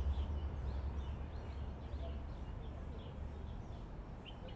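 Small birds chirping in short, repeated calls, with a low rumble of wind on the microphone.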